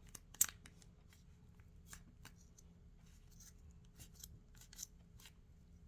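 Scissors snipping at a squishy toy: a few short, sharp cuts and clicks, the loudest about half a second in, with faint handling rustle between.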